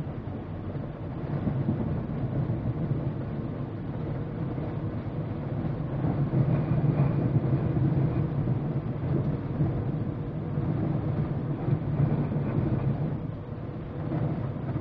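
Steady rumble and rush inside a GMC Yukon's cabin as it drives through floodwater, with water spraying up against the body and windshield.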